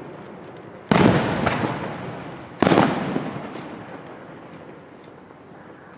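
Aerial firework shells bursting in a night display: two sharp bangs, about a second and two and a half seconds in, each followed by a rolling echo that fades away.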